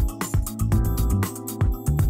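Electronic background music with a steady beat, about three low thumps a second, over sustained chords.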